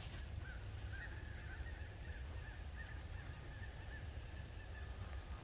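A flock of birds calling, many short arched chirps repeating and overlapping, which the hiker takes for blackbirds.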